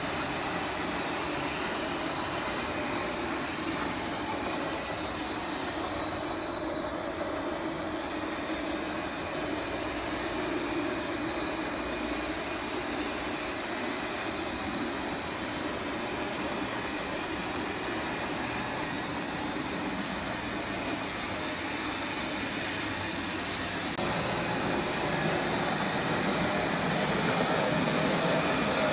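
Model railway locomotive running along its track, its small electric motor whirring and wheels rolling on the rails with a steady noise. It grows louder near the end as the train comes close.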